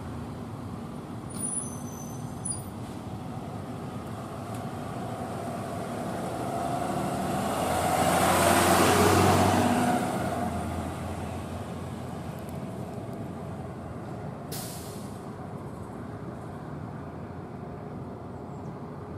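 A box ambulance drives past with no siren sounding: engine and tyre noise builds to a peak about halfway through and fades as it pulls away. A short hiss comes about two-thirds of the way through.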